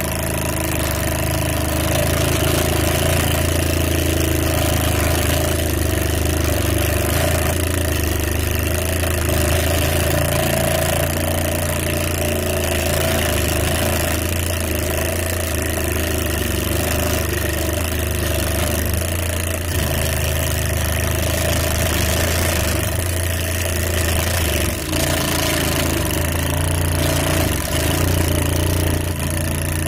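Homemade electric scissors: a small DC motor running steadily, its crank disc working the scissor blades open and shut as paper is cut.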